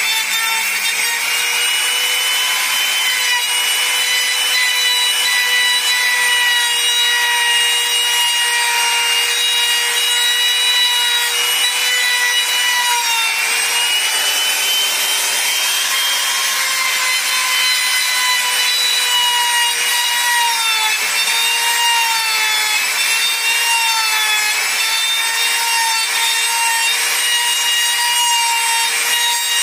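Electric trim router running at full speed, its bit cutting into a wooden board. There is a steady high whine over a hiss of chipping wood, and the whine wavers and dips in pitch several times as the router is pushed through the cut.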